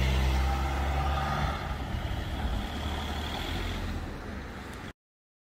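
A heavy vehicle going by with a steady low engine hum, loudest at first and fading over a few seconds, until the sound cuts off abruptly about five seconds in.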